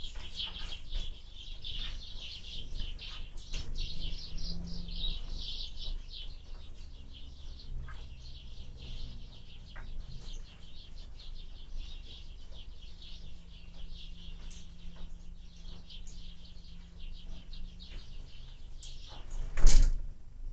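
Small birds chirping busily at a window bird feeder, thickest in the first few seconds, over a low rumble of wind on the microphone. A single loud thump comes near the end.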